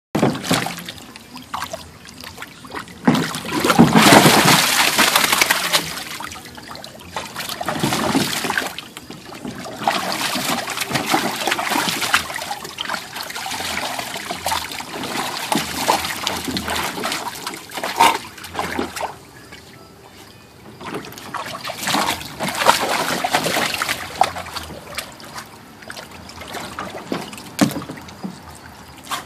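Water splashing and sloshing in a plastic kiddie pool as a dog thrashes about in it, digging at a ball on the bottom. It comes in irregular bursts with short lulls, loudest a few seconds in.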